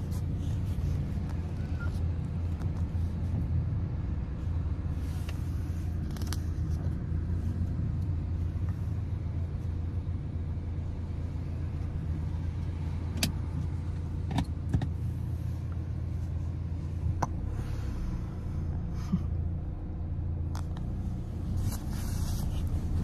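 A car's engine and road noise while driving: a steady low rumble, with a few faint knocks and clicks.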